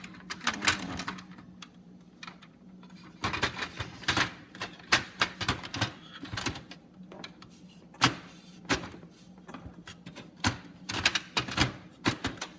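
Irregular plastic clicks, snaps and knocks from a toner cartridge and drum unit being handled and fitted into a Brother HL-2320 laser printer, with one sharper knock about eight seconds in.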